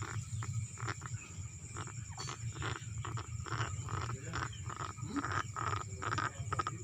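Broiler chickens sick with chronic respiratory disease (CRD) breathing with wet, snoring rasps, about three a second, over a steady low hum. The snoring ('ngorok') is the typical sign of the respiratory infection.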